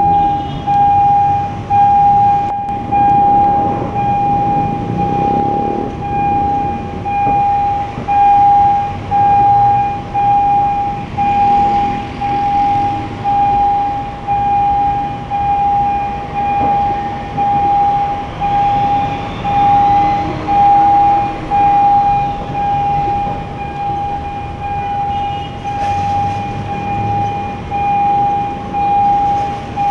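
Railway level-crossing warning alarm sounding, one loud electronic tone pulsing on and off in an even, unbroken rhythm while the crossing is closed for a train. Under it is the low rumble of the passing train and road traffic.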